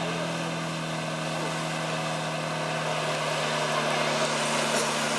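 Off-road 4x4 vehicle's engine running at a steady speed, getting a little louder in the last couple of seconds.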